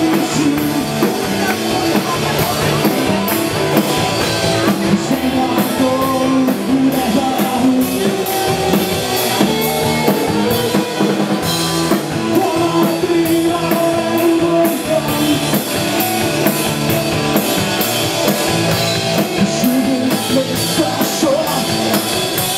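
Live dialect rock band playing over a PA, with a steady drum-kit beat and electric guitar.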